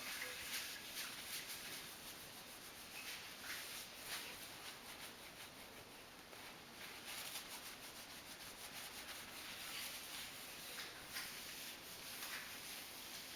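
A tabletop being wiped clean by hand, a run of quiet, repeated rubbing and scrubbing strokes.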